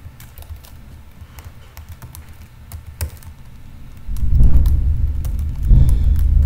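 Computer keyboard typing, scattered key clicks. From about four seconds in, a loud low rumble joins and stays to the end, louder than the typing.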